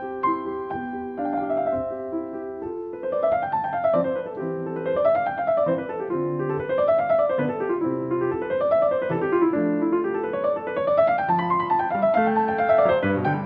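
Background piano music: a few held chords, then from about three seconds in, rolling runs of notes that rise and fall, repeating every couple of seconds.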